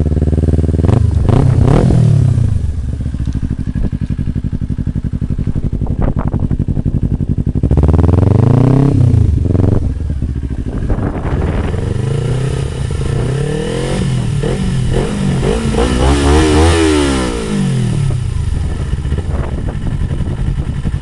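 Kawasaki Ninja 250R's parallel-twin engine through a Blueflame twin aftermarket exhaust with the baffles taken out, idling and blipped: a quick rev about a second in, a longer one around eight seconds, then a run of repeated revs that climb highest around sixteen to seventeen seconds before dropping back to idle.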